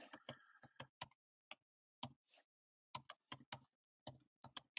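Faint typing on a computer keyboard: irregular keystroke clicks in short runs with brief pauses between them.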